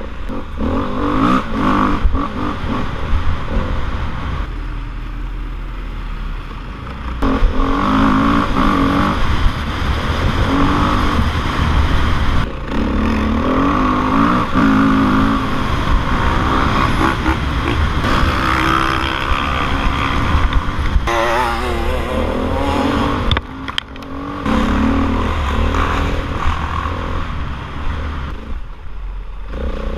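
Off-road motorcycle engine heard close from a helmet camera, revving hard and easing off again and again as the rider accelerates, shifts and slows for turns on a dirt track.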